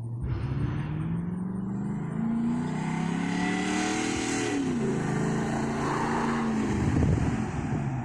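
2011 Chevrolet Silverado pickup with its mid muffler deleted, the engine pulling under acceleration and its note climbing steadily. The pitch drops once about halfway through, then climbs again and gets louder near the end.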